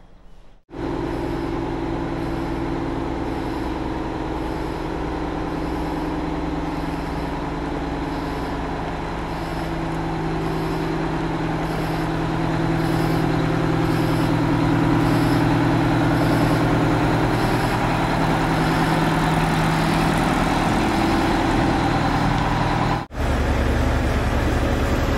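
Detroit Diesel 8V92 two-stroke V8 of an M1070 HET 8x8 truck running while the truck moves at low speed, its note rising and falling a little with the throttle and getting louder after about twelve seconds. Near the end it cuts to a different, steadier engine sound.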